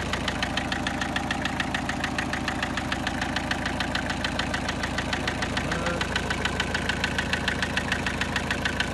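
Car petrol engine idling with a steady, rhythmic ticking knock, about four to five a second: the engine noise the owner wants diagnosed, which the title puts down to the piston side.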